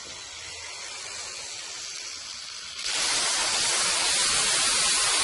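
A steady hiss that suddenly becomes much louder about three seconds in and stays loud.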